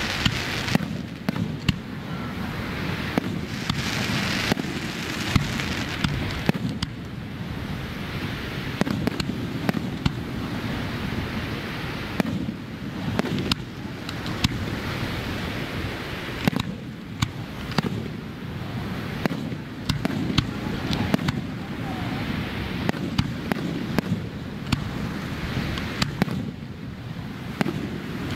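Aerial fireworks display: shells bursting overhead with frequent sharp bangs and crackles at irregular intervals, over a steady low rumble.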